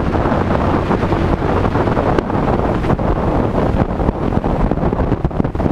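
Wind rushing over the microphone of a moving bass boat, with the steady low hum of its outboard motor underneath.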